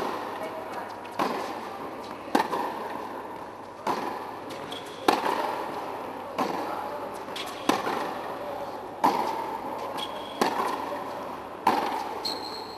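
Tennis balls struck back and forth in a baseline rally on an indoor hard court: about ten sharp racket hits, roughly one every 1.3 seconds, each echoing in the hall, with a few short high squeaks between them.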